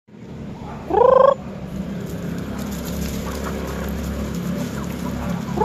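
A native chicken gives one short, loud squawk that rises in pitch, about a second in, over a faint low rumble of background noise.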